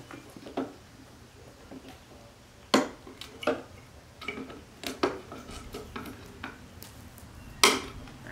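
Wire cutters nipping off protruding nail ends on a wooden box: a series of sharp metallic clicks and snaps, about six spread through the seconds, the loudest near the end.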